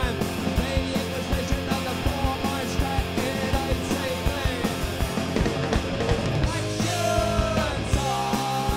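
Live punk rock band playing: guitars and bass over drums keeping a steady beat.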